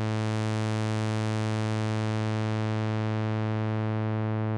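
Behringer 2600 analog synthesizer holding one low sawtooth note from oscillator 3, its filter swept by the ADSR envelope. The pitch and loudness stay steady, while the tone starts bright and buzzy and slowly turns duller as the filter closes.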